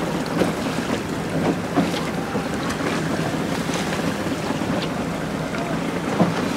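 Wind buffeting the microphone over choppy sea, with waves slapping and splashing around the boat.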